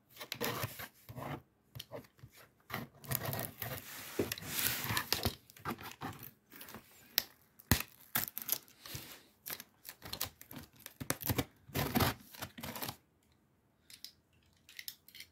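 Clear plastic wrap being torn and crinkled off a cardboard shipping box, in irregular rips and rustles that die down about two seconds before the end.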